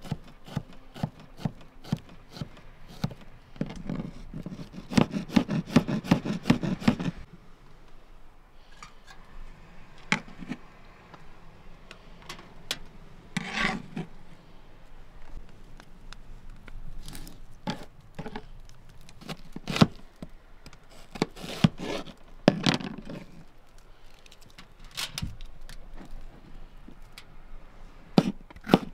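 Kitchen knife chopping garlic cloves on a plastic cutting board: steady taps at first, then a fast run of chops a few seconds in, followed by scattered knocks and rustling.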